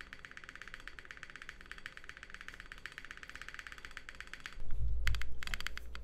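Fast typing on a Keycult no. 2/65 mechanical keyboard with lubed Auralite linear switches, an aluminium plate and GMK keycaps: a dense run of rapid key clacks. About four and a half seconds in the typing stops briefly, a dull thump follows, and the clacking resumes louder.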